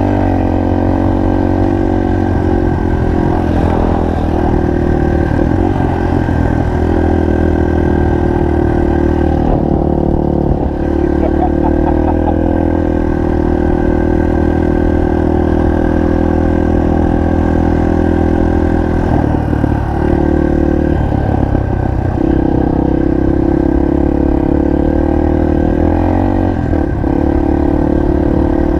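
Single-cylinder four-stroke trail motorcycle engine running under steady throttle, with the throttle briefly eased and the pitch shifting a few times, as in gear changes.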